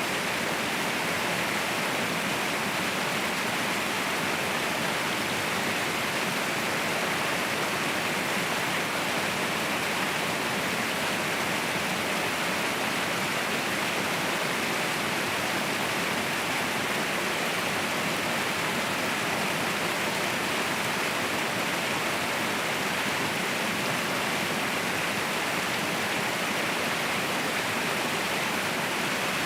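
Waterfall rushing: a steady, unbroken roar of falling water with no changes or separate events.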